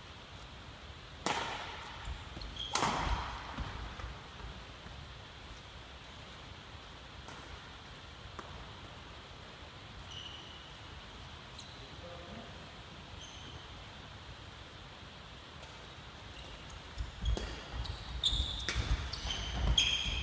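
Badminton play in a large sports hall: sharp racket strikes on a shuttlecock, twice a second or two in. Near the end come a flurry of hits, footfalls and short shoe squeaks on the wooden floor.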